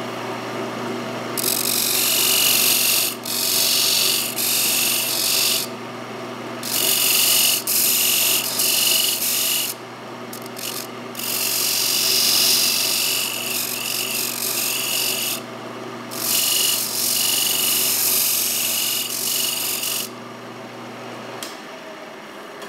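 Wood lathe motor humming steadily as a parting tool cuts a groove into a spinning mahogany blank, in about five bouts of loud scraping hiss, each a few seconds long. The motor hum stops shortly before the end.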